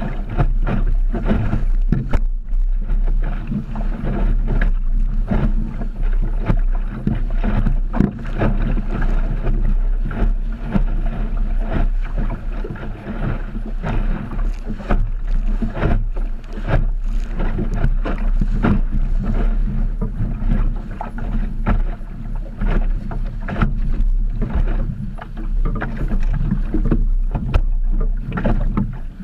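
Wind buffeting the microphone in a steady low rumble, with water slapping and splashing irregularly against the hull of an Optimist dinghy under sail in choppy water.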